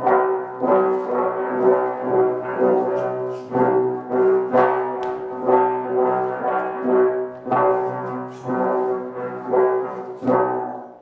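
Sound effect played for a swung stage prop: a buzzing, horn-like drone held on one pitch, swelling with a whoosh about once a second, and cutting off suddenly at the end.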